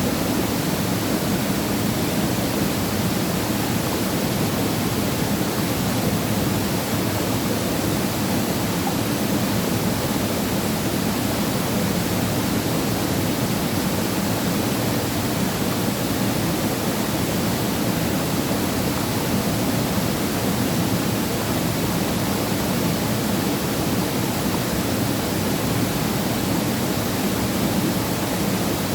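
Waterfall crashing steadily into its pool, a constant full rush of falling water with no change.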